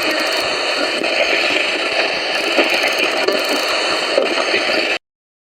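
Steady white-noise hiss that cuts off abruptly to dead silence about five seconds in.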